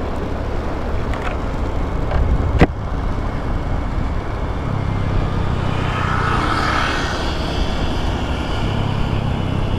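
Motorcycle engine running as the bike rolls along, with road and wind noise; a single sharp click about two and a half seconds in.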